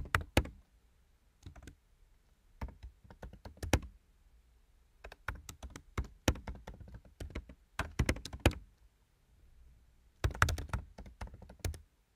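Typing on a computer keyboard: quick runs of key clicks in about six bursts, with short pauses between them.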